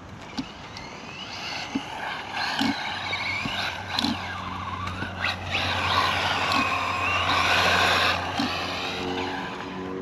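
ZD Racing RX12 RC rally car driving on sand: its motor and gears whine, rising and falling in pitch as it speeds up and slows, with scattered sharp knocks.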